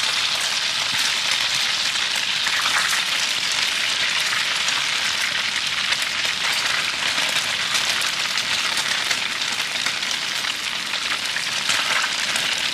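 Food frying in hot oil in a pan, a steady sizzle full of fine crackles.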